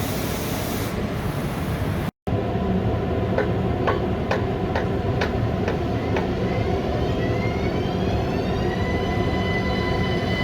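Electric train moving off on the track: wheels click over rail joints about twice a second, then the traction drive's whine rises in pitch as the train accelerates and levels off.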